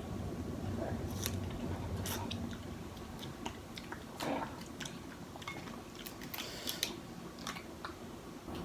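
Close-up chewing and mouth sounds of someone eating snow crab, with scattered short, sharp clicks and crackles.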